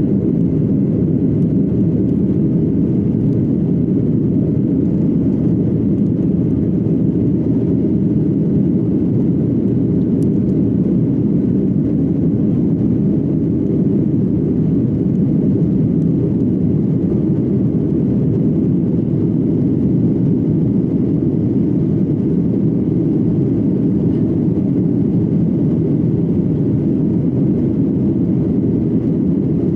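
Steady low rumble of a jet airliner heard from inside the passenger cabin: engine and airflow noise, unchanging in level.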